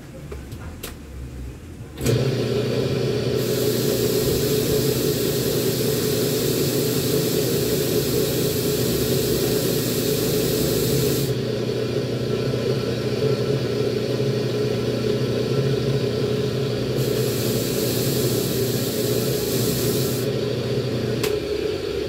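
Bench grinder with a wire brush wheel switched on about two seconds in and running steadily, with a hissing scrub twice as a fan motor's rotor and shaft are held against the spinning wire wheel to clean off dirt and stuck plastic. The grinder is switched off near the end.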